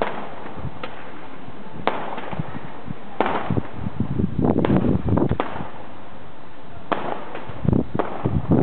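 Fireworks going off: scattered separate bangs about a second apart, with clusters of crackling bangs around the middle and near the end.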